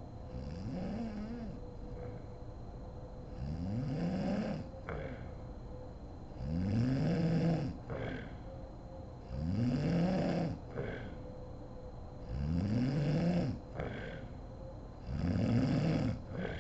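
A sleeping woman snoring, about six snores at roughly three-second intervals, each a pitched snore that rises and then falls. A faint steady hum runs underneath.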